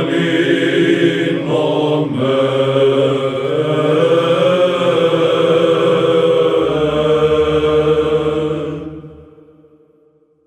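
Byzantine Orthodox chant sung by a choir of cantors over a low held drone, drawing out the closing phrase of the hymn. It ends on a long held note that fades out about nine seconds in.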